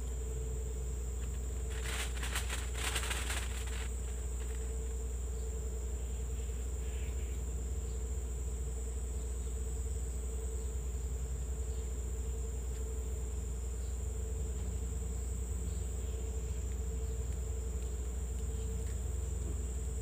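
Forest insects chirring steadily, a continuous high buzz over a steady low hum, with a short crackling burst about two seconds in.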